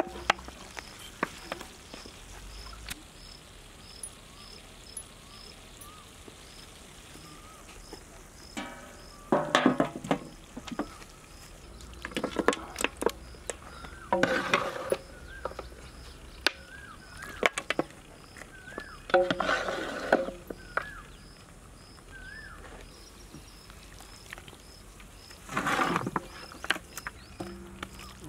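Outdoor ambience: an insect chirping steadily about twice a second, with a few whistled bird calls and scattered clicks. Several louder noisy bursts of a second or two come and go.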